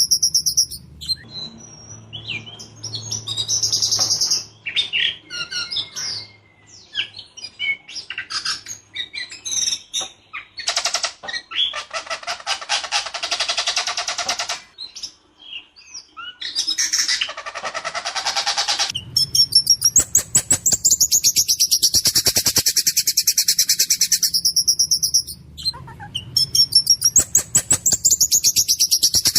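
Ciung batu (whistling thrush) singing continuously: a varied, rough-voiced song of whistled phrases and fast rattling trills, with short pauses between phrases.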